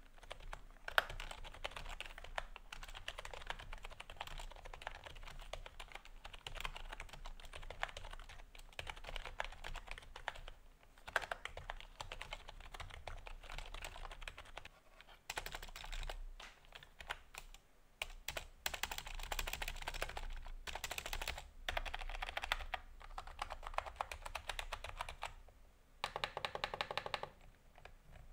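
Typing on a budget membrane gaming keyboard, the KRUX Frost: a steady clatter of soft keystrokes with a few short pauses. Near the end comes a quick, even run of presses.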